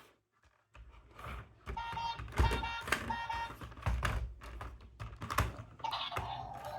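Irregular plastic clicks and knocks, as of a remote-control toy vehicle being handled, with a few short electronic beeps about two to three seconds in.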